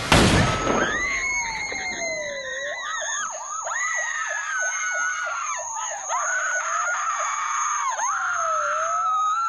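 A loud crash at the start, then police sirens wailing and yelping, mixed with a woman screaming: a horror film's soundtrack.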